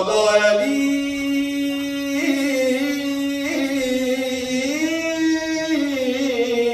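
A man's solo devotional chant into a microphone, unaccompanied, holding one long melodic note that steps up a little about two seconds in, rises around five seconds in and falls back near the end, in the style of a Shia majlis recitation.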